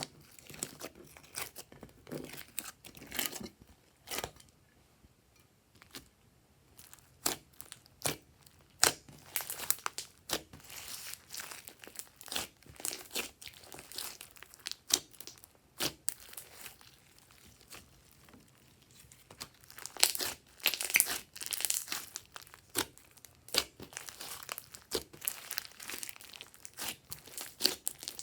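Glossy slime being kneaded and stretched by hand: irregular sticky crackles, clicks and pops come in clusters, with a couple of quieter spells between them.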